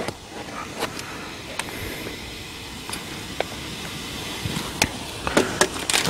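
Barocook flameless self-heating cooker reacting strongly: a steady hiss of steam escaping, with a few scattered small clicks.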